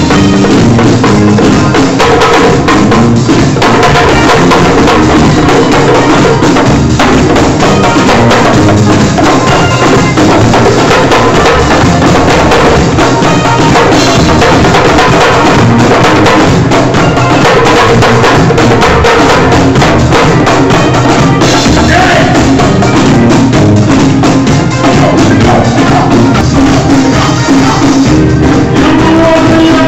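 Live afrobeat band playing loudly: electric guitars over hand drums and a drum kit, with no singing.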